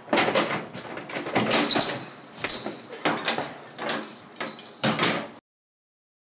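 An apartment door being handled and opened: a run of clicks, knocks and rattles with a brief squeak about two seconds in. It cuts off suddenly into silence about five seconds in.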